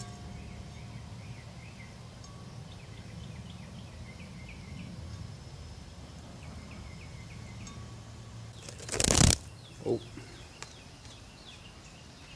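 Small birds chirping in short repeated runs of high notes over a steady low outdoor hum. A brief loud rustle about nine seconds in, and a smaller one a second later.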